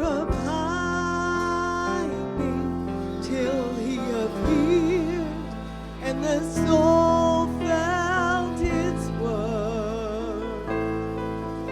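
Slow, tender Christmas medley music: held chords that change about every two seconds, under a melody with vibrato.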